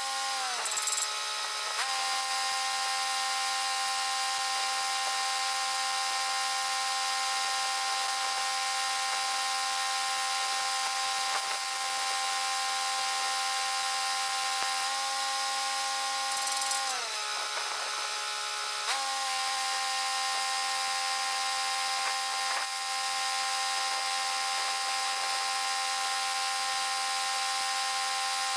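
Stick welding with a 1/8-inch 7018 rod: steady arc crackle and hiss over the constant hum of the welding machine. The hum briefly drops in pitch and recovers twice, just after the start and at about 17 seconds.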